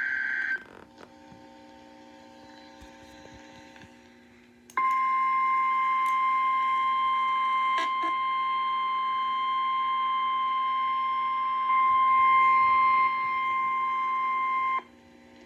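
Weather radio tornado-warning alert: a short burst of data tones at the start, then a few seconds of faint hum, then a steady high-pitched alarm tone held for about ten seconds before cutting off suddenly. This is the warning alarm tone that precedes a National Weather Service warning broadcast.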